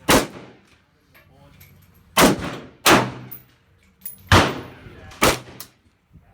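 Five gunshots fired one at a time at uneven intervals, each a sharp crack followed by a short echoing tail.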